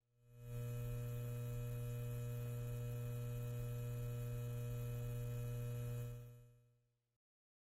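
A steady low electrical hum with a faint hiss, fading in over about half a second and fading out about six seconds in.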